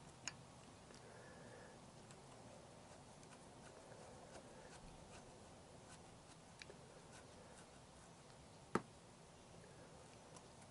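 Near silence with faint, scattered clicks of small metal parts being handled while fitting a motorcycle side stand's springs and pivot bolt. There is one sharp click just after the start and a louder one about nine seconds in.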